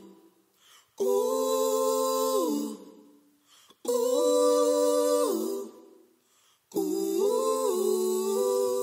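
Layered voices humming a cappella in close harmony: three held phrases, each a second and a half or so long, with short pauses between.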